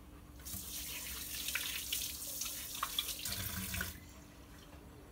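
Water running with a steady hiss that starts abruptly about half a second in and cuts off abruptly about a second before the end, with a few faint clicks and splashes inside it.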